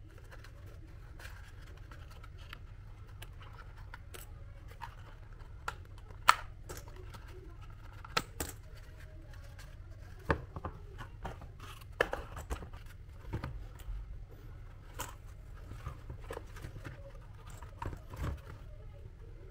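Hands working cardboard pieces: scattered light taps and clicks, a few sharper ones, over a steady low hum.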